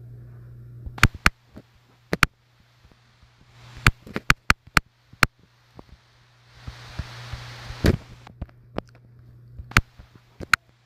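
A dozen or so irregular sharp taps on a phone touchscreen, some in quick runs, over a steady low hum. A soft rushing noise comes and goes about seven seconds in.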